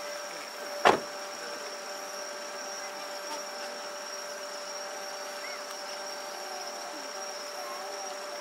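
Steady chorus of night insects with several held tones. About a second in comes a single sharp bang, a firework shell bursting.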